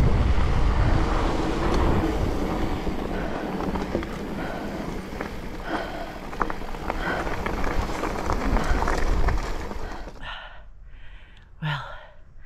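Mountain bike riding down a dirt trail: wind buffeting the microphone over tyre noise, with scattered clicks and rattles. The noise stops suddenly about ten seconds in, leaving a quieter stretch with a few short voice-like sounds.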